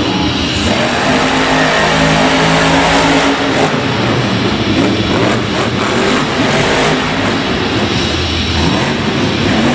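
A monster truck's supercharged V8 engine, very loud, revving hard as the truck drives and manoeuvres on a dirt track, its pitch rising and falling.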